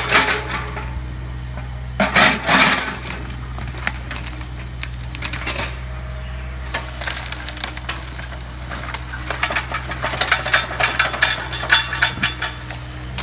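Mini excavator's diesel engine running steadily while its bucket digs into and drops demolition debris: clattering and crunching of broken wood and building rubble. The clatter comes right at the start, again about two seconds in, and in a longer, denser run near the end.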